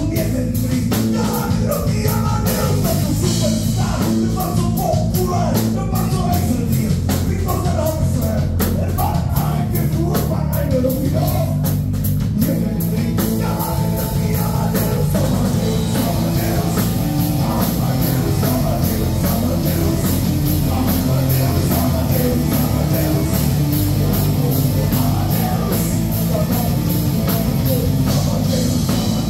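Live rock band playing: a male lead vocal over electric guitars, keyboard and drum kit, at a steady loud level.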